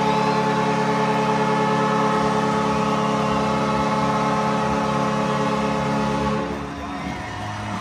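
Arena goal horn sounding one long, steady blast that signals a home-team goal, then cutting off sharply about six and a half seconds in.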